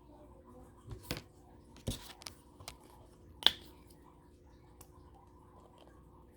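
A handful of light clicks and taps, about six in the first three and a half seconds, the sharpest near the middle, over a faint steady hum.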